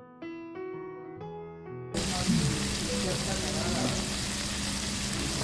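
Soft piano music, then from about two seconds in, slices of salted beef tongue (tan shio) sizzling on a yakiniku grill.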